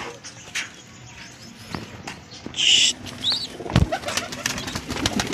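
Pigeons in a loft: wing flaps and cooing, among scattered clicks and one dull thump a little past the middle.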